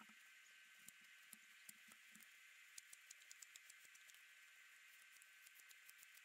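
Faint scraping and small crisp clicks of a knife blade carving and shaving dried papier-mâché, the clicks coming thicker from about halfway through.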